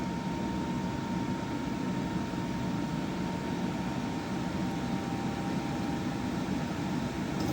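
EcoFlow Wave portable air conditioner running with its fan turned all the way up: a steady rush of air with a faint thin whine.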